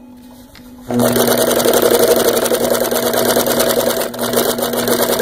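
A 1941–42 Singer 151W1 walking-foot industrial sewing machine sewing through denim at speed, a fast, steady, even-paced run of stitches. The stitching starts about a second in, after a brief stop where only a low steady hum is heard.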